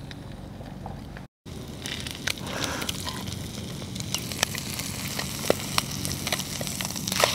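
A whitebait and egg fritter sizzling and crackling in a frying pan on a portable gas stove, with many sharp little pops and clicks. A low steady hum comes first, and the sizzling starts after a brief break about a second in.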